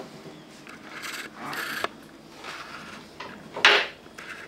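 Table knife sawing through a cooked pork steak and scraping on a wooden cutting board: a few short rasping strokes and a sharp tick. A brief, louder rush of noise comes about three and a half seconds in.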